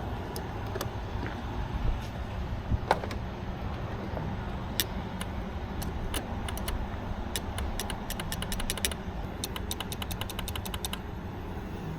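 Light clicks and rattles of small metal parts being handled over a steady low hum, with a fast run of clicks in the second half.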